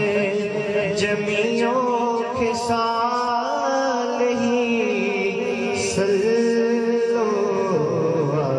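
Male voice singing a Punjabi naat unaccompanied into a microphone, in long, wavering held notes that slide between pitches.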